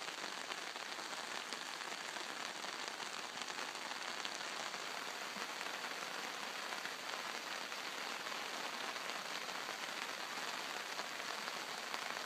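Gentle rain falling steadily, an even hiss with no change in strength.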